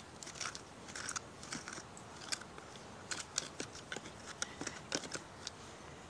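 Hand digging through dump soil and debris: a hand tool scraping and picking at the dirt, with many light, irregular clicks, scrapes and crunches as broken glass and rubbish shift.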